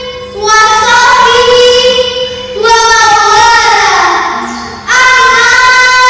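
A young girl singing solo in long, held notes that slide in pitch, with brief breaks for breath just after the start and about five seconds in.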